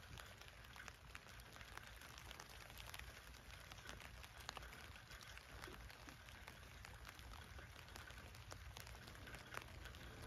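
Faint light rain falling on a tent, heard from inside: scattered drops ticking irregularly on the fabric over a soft steady hiss.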